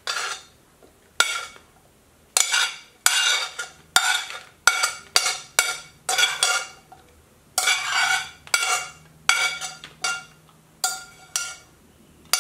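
Metal spoon scraping and knocking against a ceramic plate and bowls while food is scooped and served: about fifteen short, ringing clinks and scrapes at an uneven pace.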